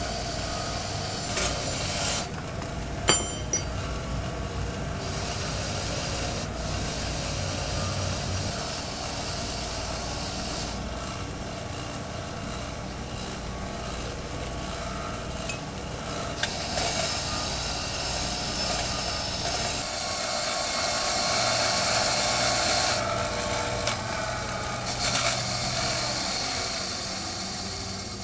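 Bench grinder running with the rusty steel pipe wrench pressed against the spinning wheel, grinding off rust. The motor's steady whine goes on throughout, and a harsh grinding hiss comes and goes in stretches of several seconds as the wrench is pressed on and lifted off.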